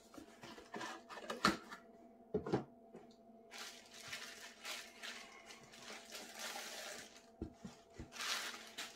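Packaging being handled as a drone's carrying case is taken out of its box: rustling and sliding noises with a few light knocks.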